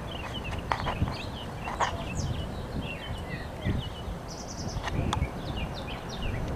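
Several birds chirping and singing in quick, repeated short notes, over an uneven low rumble from wind on the microphone.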